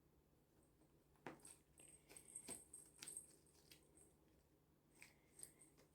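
Faint jingling and a few light knocks as a cat plays with a feather-on-a-stick toy, with a knock about a second in and another a second later.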